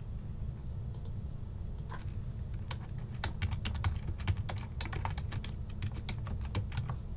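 Computer keyboard typing: a couple of single keystrokes, then a quick run of keystrokes as a password is typed into a login form, over a low steady hum.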